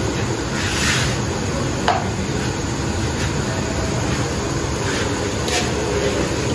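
A spoon scooping powdered spice from a plastic container, making a few light clicks and scrapes, over a steady rushing noise.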